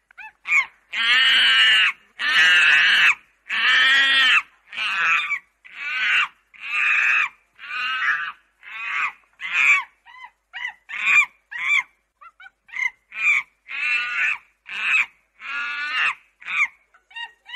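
Chimpanzee screaming: a long series of high, shrill calls, each rising and falling in pitch. The first few are drawn out over a second or more, and the later ones come shorter and quicker, about one a second.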